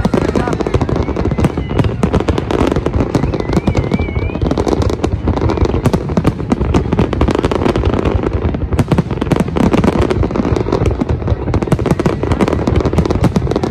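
Large aerial fireworks display: a dense, unbroken barrage of shell bursts and crackling, many shots overlapping with no let-up.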